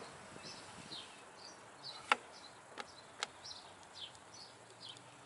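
A few sharp metallic clicks from a spanner wrench and drive chain as the chain tension is set on the Ducati's single-sided swingarm rear hub, the loudest about two seconds in. Behind them, birds keep up short, falling chirps.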